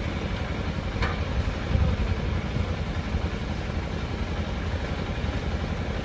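Concrete mixer's engine running steadily, with a faint clink about a second in.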